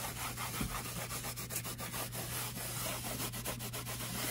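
A cloth rag rubbing over the inside of an energy recovery ventilator's foam cabinet in quick, repeated wiping strokes.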